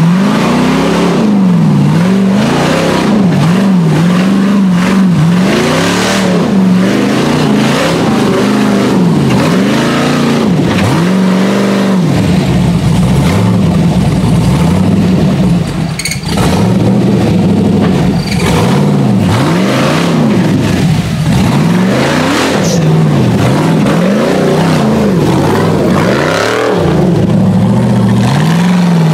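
Rock buggy engines revving hard up and down, again and again, as the buggies climb a rocky trail under load, with a brief dip about halfway through.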